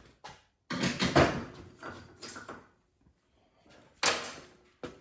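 Metal transmission parts scraping and clattering as the internals are pulled out of a Turbo 400 (TH400) transmission case, ending in one sharp clack near the end.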